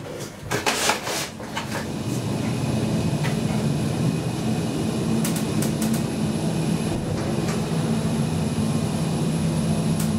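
A few clicks and knocks, then the KONE TranSys machine-room-less traction elevator car running with a steady hum heard from inside the car as it travels between floors.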